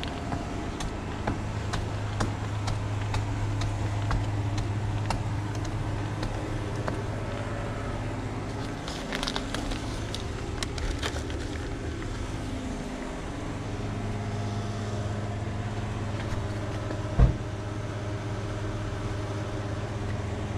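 Footsteps climbing outdoor stairs over a steady low hum, with paper bag handling about halfway through and a single loud thump a few seconds before the end.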